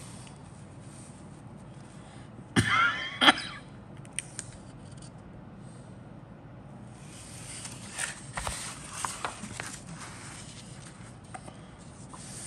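Paper booklet pages being handled and turned, with rustling and light crisp clicks. About two and a half seconds in comes a short, louder squeal with a wavering pitch, the loudest sound here.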